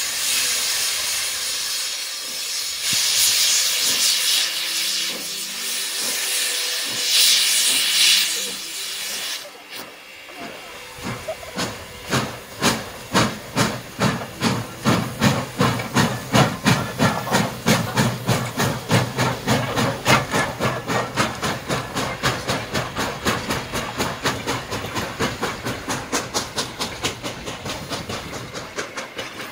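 Steam locomotive hissing loudly as it vents steam for about nine seconds, then pulling away: its exhaust chuffs start slowly and quicken to about four a second as it gathers speed.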